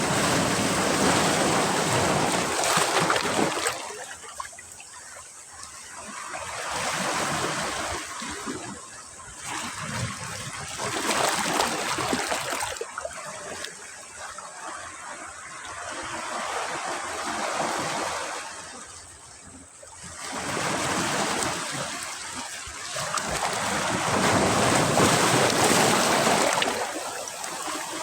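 Sea waves breaking on a beach and washing back, a rushing surge that swells and fades about every four to five seconds, with the loudest breaks at the start and near the end.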